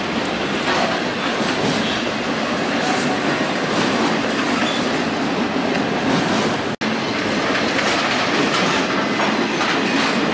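Union Pacific intermodal train's double-stack well cars rolling past, a steady noise of steel wheels on rail. The sound cuts out for an instant about two-thirds of the way through.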